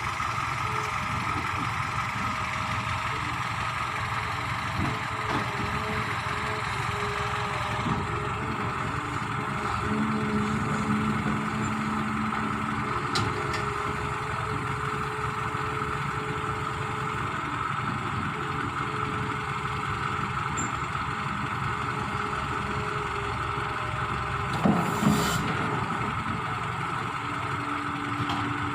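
Heavy vehicle engine idling steadily, with a short loud knock about 25 seconds in.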